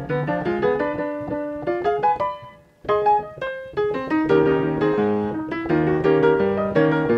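Piano music: a flowing run of notes that pauses briefly about two and a half seconds in, then picks up again.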